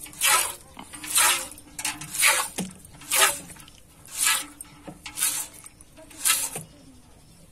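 Streams of milk squirting into a steel pail as a cow is milked by hand, in short spurts about once a second that stop near the end.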